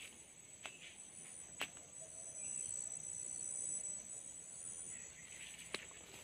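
Faint cornfield ambience: a steady high-pitched insect drone, with a few soft clicks and a faint rustle as someone walks between the maize plants.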